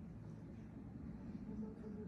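Street background noise: a steady low rumble, with faint voices coming in near the end.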